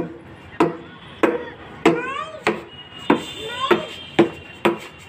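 A steady beat of sharp knocks, about nine in five seconds, evenly spaced, with short pitched sounds ringing after each one.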